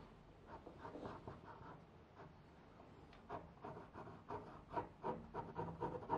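Graphite pencil scratching on drawing paper in a run of short, quick strokes as outlines are sketched in. The strokes come faster and a little louder in the last couple of seconds.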